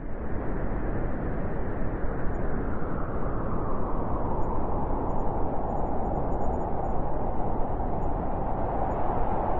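Blizzard wind blowing strongly and steadily, a deep, even rushing noise without gusts or pauses.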